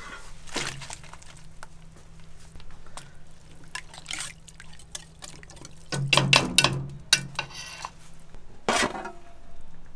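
Soup being stirred in a brass pot with a metal whisk and ladle: liquid sloshing, with sharp metal clinks against the pot, loudest about six to seven seconds in, over a steady low hum.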